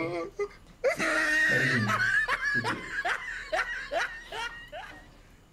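A man bursting into laughter about a second in, then a run of short "ha" pulses, about three a second, that trail off near the end.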